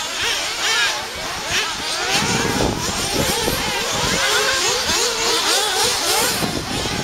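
Several off-road RC model cars' small engines running on the track, overlapping and revving up and down as the cars accelerate and back off.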